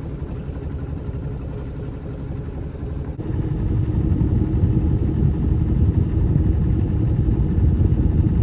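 Sailboat's inboard engine running steadily, a low drone with a fast even pulse; it gets louder about three seconds in.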